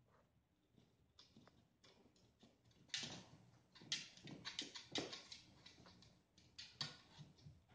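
Cats' paws reaching into a wooden puzzle box toy with holes, a toy ball inside: a quick run of light taps, knocks and claw scrapes on the wood, starting about three seconds in.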